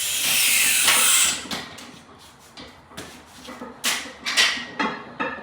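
A weightlifter's heavy breathing under a loaded barbell squat: a long, loud hissing exhale, then a run of short, sharp breaths and grunts as he braces and strains.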